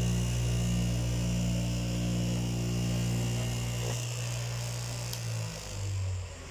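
Electric straight-knife cloth cutting machine running through layered fabric, a steady electric hum and buzz. The hum thins out about four seconds in and drops lower and quieter near the end.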